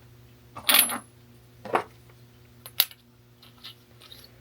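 Galvanised steel pipe fittings clinking and knocking against each other as they are handled: a sharp ringing clink under a second in, two more about a second apart, then a couple of faint knocks.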